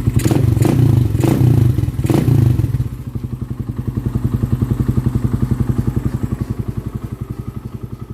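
Suzuki Raider 150's single-cylinder four-stroke engine running through an Apido aftermarket exhaust packed with steel wool: a few quick throttle blips in the first couple of seconds, then settling to an even, pulsing idle that grows slowly quieter near the end.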